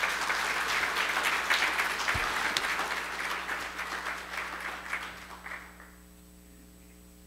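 A church congregation applauding, the clapping dying away about five to six seconds in.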